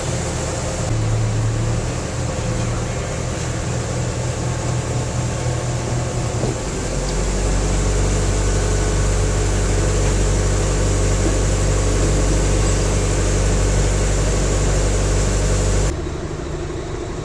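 A heavy engine running steadily under load. Its hum grows louder and deeper about six and a half seconds in, and eases back near the end.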